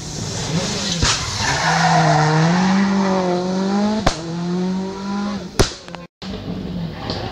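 Rally car engine revving hard, its note rising and falling as the throttle is worked through a bend, with three sharp cracks about a second, four seconds and five and a half seconds in.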